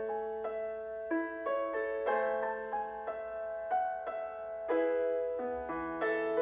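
Background music: a slow, gentle piano melody, a new note struck about two or three times a second over held low notes.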